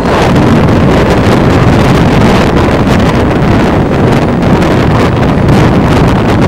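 Wind buffeting the microphone: a loud, steady, rumbling roar with irregular gusty flutter and no clear engine note.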